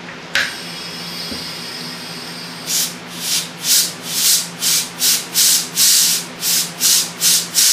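CO2 hissing through the gas line into a beer keg, starting suddenly just after the gas is opened. From about two and a half seconds in, gas vents from the keg's pressure relief valve in quick short bursts, about two or three a second, purging oxygen from the headspace above the beer.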